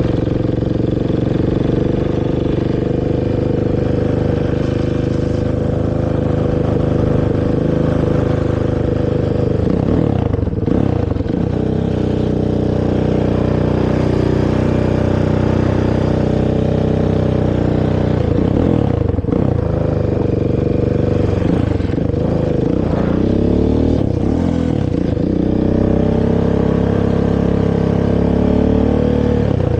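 Honda TRX450R quad's single-cylinder four-stroke engine through its stock exhaust, running at a steady pace while riding. The engine note drops and climbs again about a third of the way in, near two-thirds, and a few more times after that as the throttle is eased and reopened.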